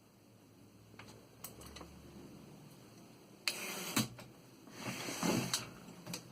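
1937 Underwood Noiseless typewriter being worked: a few light clicks, then two longer stretches of mechanical noise about half a second each, the first ending in a sharp click, with another click near the end.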